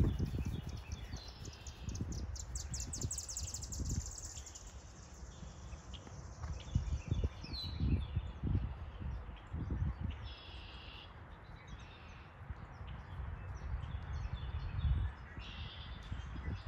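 Songbirds chirping, with a fast trill in the first few seconds and short bursts of chirps later on, over irregular low dull thumps of a horse's hooves on grass.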